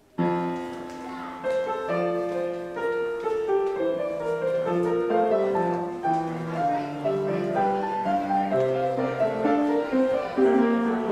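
Instrumental keyboard music starting suddenly: the postlude that closes the church service, in moving chords of several held notes.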